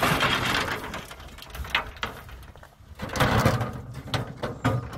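Large riveted sheet-metal panel being lifted and stood on end, scraping and rattling in two noisy stretches, one at the start and one about three seconds in, with a few sharp knocks.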